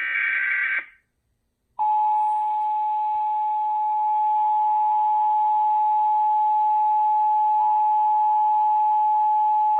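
The tail of an Emergency Alert System SAME digital header burst, then about a second of silence, then the EAS two-tone attention signal (853 and 960 Hz together), sounding steadily for about eight seconds ahead of a Child Abduction Emergency (Amber alert) voice message.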